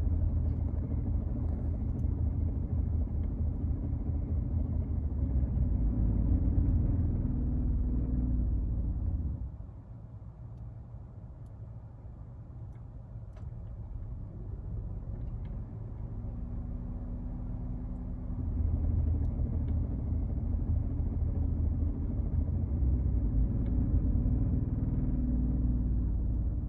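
Abnormal noise from a Nissan Note's electric cooling fan, a loud low rattling drone, which the garage puts down to a faulty fan that rattles as it spins. It drops to a quieter level about nine seconds in and comes back loud some nine seconds later, as the fan cuts out and starts up again.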